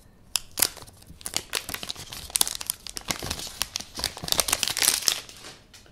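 Clear plastic protective wrap being peeled off a new smartphone: a dense run of crinkling and crackling that starts a moment in and dies away near the end.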